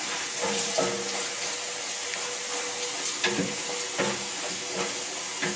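Cold water from a kitchen tap pouring into a stainless-steel saucepan of dye and ripstop fabric in a sink, a steady hiss, with a couple of light knocks about three and four seconds in.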